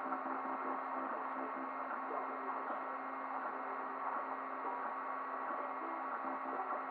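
Open-frame FDM 3D printer at work: the stepper motors hum in low tones that shift in pitch as the print head changes moves, over the steady hiss of the cooling fan.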